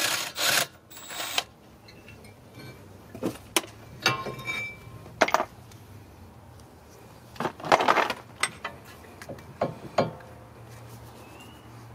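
A power tool gives a last short burst at the start. Then come scattered metal clicks, clanks and short scrapes as the front brake caliper bracket is lifted off and the brake rotor is handled on the wheel hub.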